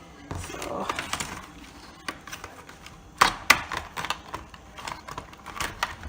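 Plastic clips and bottom case of an HP 15 laptop clicking and creaking as they are pried apart by fingernail: a string of sharp clicks, the loudest two about three seconds in. The case resists because one screw is still holding it.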